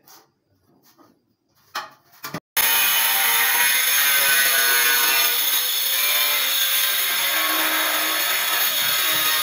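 A few faint taps, then about two and a half seconds in a loud, steady power-tool noise starts abruptly and keeps running without change.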